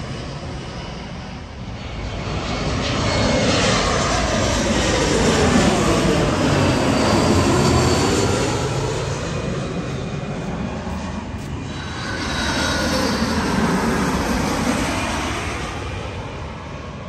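Airliners passing close by, the engine roar swelling to a peak about four to eight seconds in and again about thirteen seconds in. As each one passes, the tone sweeps up and down.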